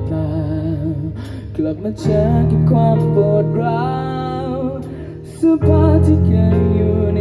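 A live band playing a slow pop-rock song on electric guitars, bass, drums and keyboard, with a wavering melody line over a steady bass. The music drops back briefly about five seconds in, then the full band comes back in louder.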